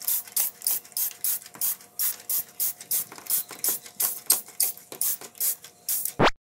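Hand trigger spray bottle pumped rapidly, about three or four squirts a second, each a short hiss of mist with the trigger's click. Near the end comes one brief sweep of noise, and then the sound cuts off.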